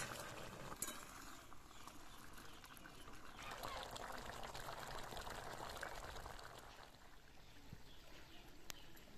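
Pork curry bubbling and simmering in a wok over a wood fire, a soft wet bubbling that is fuller in the middle and eases off about seven seconds in.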